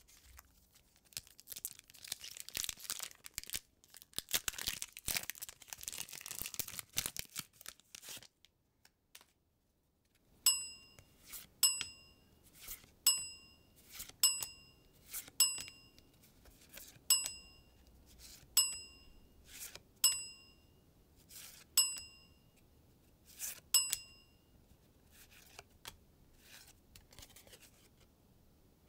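Foil booster-pack wrapper crinkling and tearing open for about eight seconds. After a short pause comes a run of about a dozen short bright ding chimes, roughly one every one to two seconds, each with a soft card-slide sound, as the trading cards are flipped one by one. Quieter card shuffling follows near the end.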